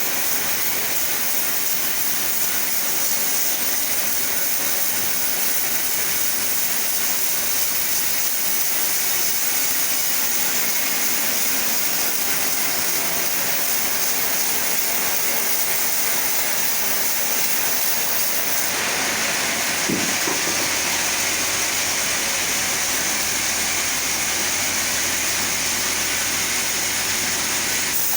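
Chainsaw running steadily under load while ripping a sapodilla log lengthwise: a loud, continuous hissing engine noise with no breaks.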